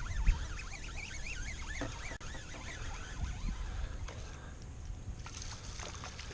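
Birds calling in quick warbling, up-and-down chirps that thin out about halfway through, over a steady low rumble.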